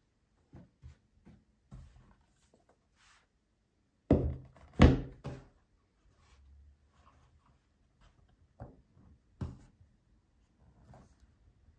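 A hard watch presentation box knocked and set down on a wooden tabletop, with two loud thuds about four seconds in and two lighter ones near the end. Soft tissue-paper rustles and small taps come in between.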